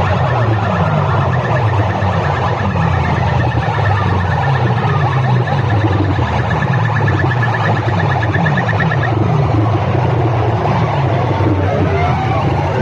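Competition DJ sound-system boxes blaring an electronic siren-effect track: fast, repeated heavy bass pulses under a quick warbling high tone that stops about nine seconds in, followed by rising and falling siren sweeps near the end.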